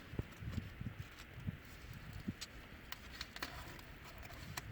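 Quiet handling of a vinyl decal and its transfer tape: a few faint, sharp clicks and soft low bumps, scattered unevenly.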